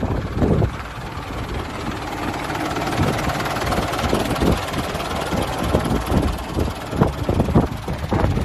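Mitsubishi 4D35 four-cylinder diesel engine of a Canter dump truck idling steadily, heard close to the chassis, with irregular low thumps over it.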